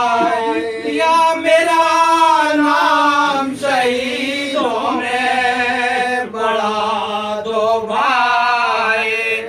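Men's voices chanting an Urdu Muharram elegy in unison, unaccompanied, with long held and gliding melodic lines.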